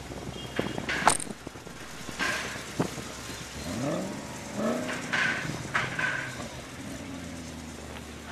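Car engines idling in a slow queue of classic cars, with one engine's pitch rising and falling about four seconds in as it is revved or pulls away. People's voices can be heard.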